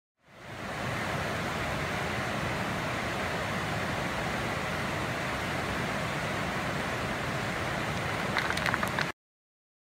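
Whitewater river rapids rushing over boulders, a steady broad rush that fades in and cuts off suddenly. A few short clicks sound just before the end.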